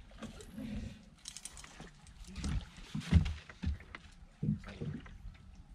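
Irregular knocks and thumps on a wooden boat, with the hull and water moving as the angler shifts his weight while fishing from the bow; the loudest knock comes about three seconds in.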